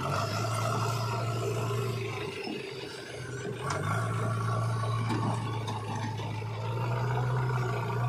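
JCB 3DX backhoe loader's diesel engine running hard under load with a steady drone. It eases off about two and a half seconds in, then revs up again about a second later.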